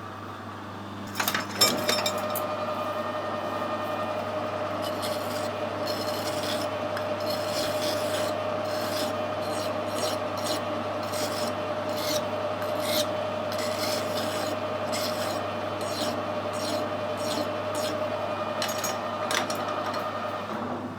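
A small abrasive shop machine starts about two seconds in and runs with a steady hum. A metal part is worked against it in repeated rasping strokes, blending off a sharp edge, and the machine stops near the end.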